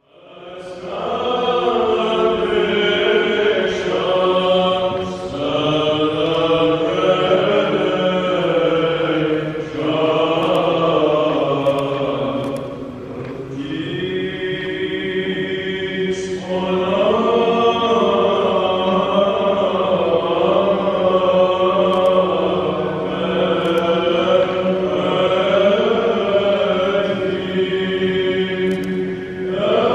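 Church choir chanting a slow Orthodox liturgical hymn in harmony, long held notes in phrases with brief pauses between them.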